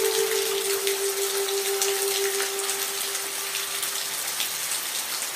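Steady rain, an even hiss with scattered drops pattering, under one soft held music note that fades out about four seconds in.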